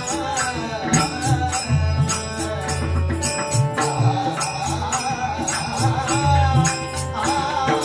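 Marathi devotional bhajan music: a chanted gajar refrain over steadily clashing taal hand cymbals, low drum strokes and steady held notes.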